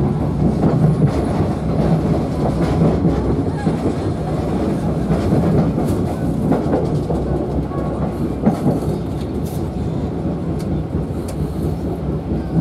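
Passenger train running, heard from inside the coach: a steady rumble of wheels on rail with irregular clicks and clacks as the wheels cross rail joints and points.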